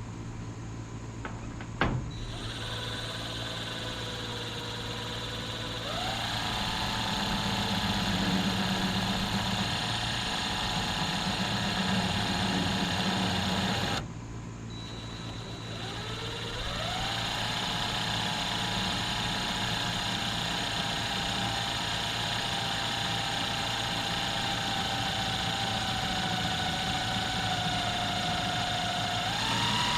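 A motor running steadily, its pitch rising as it spins up about six seconds in. It cuts off suddenly about halfway, starts up again and runs on. A single sharp click comes about two seconds in.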